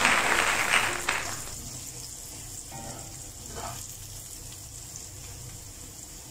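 Diced hotdogs and mixed vegetables sizzling in oil in a wok while a wooden spatula stirs them; the loud sizzle drops off about a second in to a faint frying hiss.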